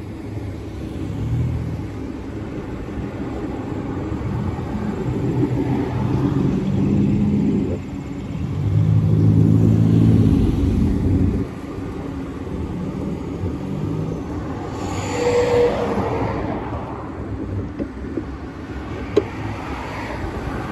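Road traffic: car and pickup-truck engines running at close range with a low, pitched engine note, loudest about halfway through. A car passes in the other direction about three quarters of the way in.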